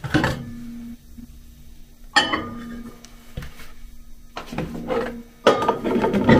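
Dishes clinking and knocking as milk is put into a microwave oven: a few sharp knocks spaced a couple of seconds apart, then a busier run of clinks near the end, with a faint low hum in between.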